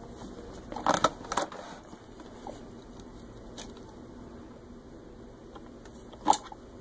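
Sharp clicks and knocks of steel pliers gripping and tugging the wire-reinforced vacuum hose on a plastic elbow of a Rug Doctor carpet cleaner: a cluster of two or three about a second in, and one loud click near the end. The hose stub is glued into the elbow.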